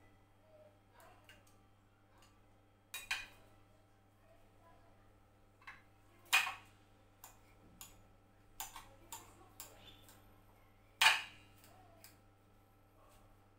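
Table knife and fork clinking and scraping against a ceramic plate while cutting and mashing boiled potato: scattered sharp clicks, the loudest about six and eleven seconds in.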